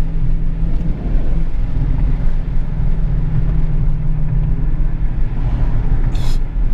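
The 5.7-litre Hemi V8 of a 2014 Dodge Challenger R/T runs at a steady speed, a constant low drone heard from inside the car. A brief sharp noise comes near the end.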